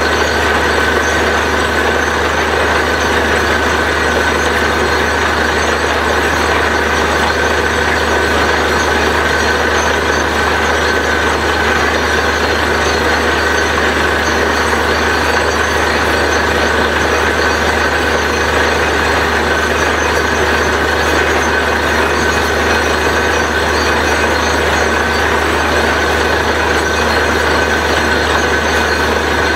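Truck-mounted borewell drilling rig running steadily, its engine and compressor unit making a loud, unchanging drone while drilling goes on and muddy water flows from the borehole.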